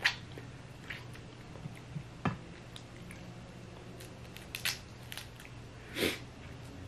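Close-miked eating by hand from a seafood boil: wet mouth smacks, biting and chewing, with about half a dozen short separate clicks and squishes as food is pulled apart with the fingers. A longer, louder smack comes about six seconds in.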